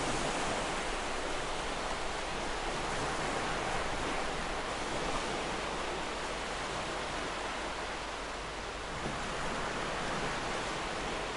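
Ocean surf washing onto a shore: a continuous hiss of breaking and receding waves, easing slightly about eight seconds in and building again a second later.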